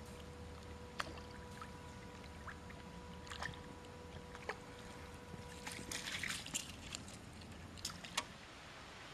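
Small river waves lapping at the bank over a steady low rumble, with a faint steady tone that stops about six seconds in. Scattered sharp clicks and a short burst of splashing about six seconds in.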